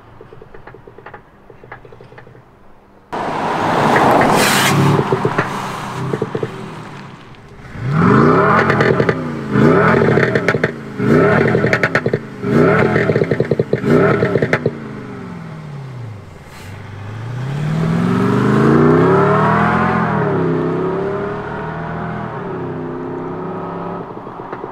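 Synthetic V8 exhaust note from an Active Sound Unit sound generator with an extra loudspeaker on a Mercedes-Benz CLS 350d diesel. The car is revved in place: a sudden loud rev about three seconds in, then five quick blips that each rise and fall, with crackling pops from the misfire setting, then one longer rev that climbs and falls back.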